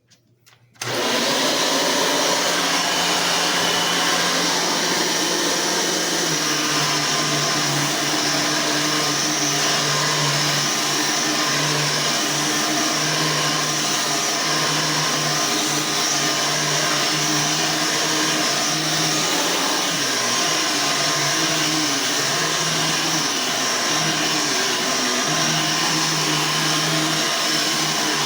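Hoover 12-amp vacuum cleaner switched on about a second in and then running steadily at full speed.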